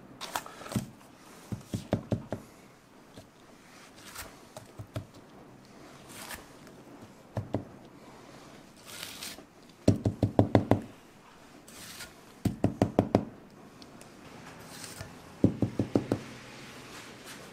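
A spatula rapped against hard edges in quick runs of four to six knocks, several times over, knocking off thick stone-ground chocolate paste; single clicks and light scraping fall between the runs.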